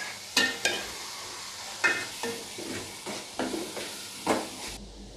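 Steel spoon stirring puréed tomato with fried onion and garlic in a hot metal pan, the mixture sizzling in oil, with scattered clinks and scrapes of the spoon against the pan. The sound drops out briefly near the end.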